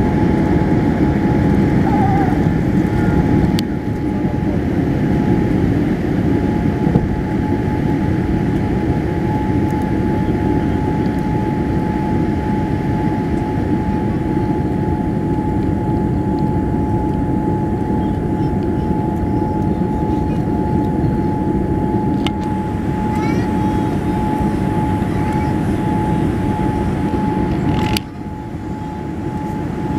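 Steady engine and airflow rumble in the cabin of a Boeing 787 climbing after takeoff, with a steady whine above it. A few sharp clicks, and the loudness drops suddenly near the end.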